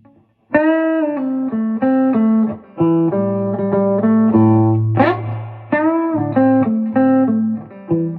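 Electric guitar played through a circa-1995 Marshall JTM30 valve amp, back in working order after repair: a bluesy lick of single notes with string bends, played twice over, with a brief scrape across the strings about five seconds in.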